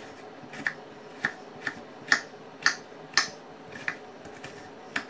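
Kitchen knife slicing a white onion on a plastic cutting board: about eight sharp knocks of the blade meeting the board, at uneven intervals of roughly half a second.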